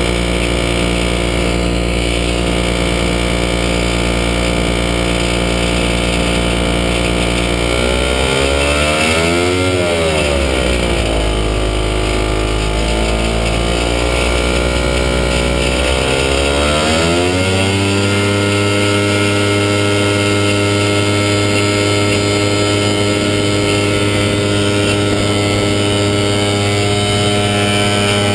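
Falcon XP ultralight's engine and propeller running steadily at low power. The pitch rises and falls for several seconds in the middle. About two-thirds of the way in it opens up to a steady, higher note at takeoff power as the aircraft accelerates down the grass runway.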